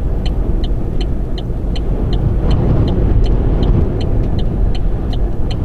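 Strong rear-flank-downdraft winds buffeting a stopped car, heard from inside the cabin as a loud, low, gusting rush. A fast regular ticking, about four ticks a second, runs over it.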